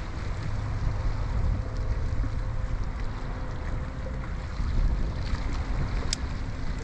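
Wind buffeting the microphone in a gusting low rumble, over the hiss of small waves washing against rocks. A single sharp click comes near the end.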